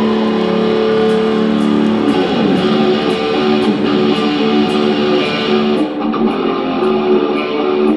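Live rock band playing loud through a concert PA, heard from the audience: distorted electric guitars hold long notes for about two seconds, then break into a riff over bass and drums.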